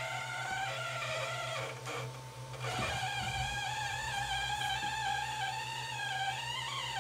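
Anycubic i3 3D printer making a high, buzzing whine that wavers up and down in pitch over a steady low hum. It is a fault sound: the printer has started making it and will not move correctly.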